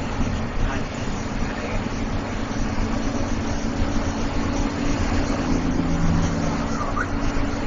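Engine drone and road noise of a bus heard from inside its cab while cruising at highway speed: a steady low hum under a continuous rush of tyre and wind noise.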